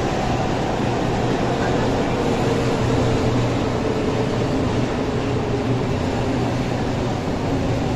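Concarril NM-79 rubber-tyred metro train running through an underground station without stopping, a steady rolling rumble with a faint tone that falls slightly.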